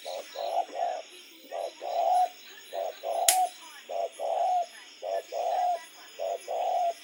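Spotted dove cooing repeatedly, about six phrases, each one or two short coos followed by a longer one. A sharp click sounds about halfway through.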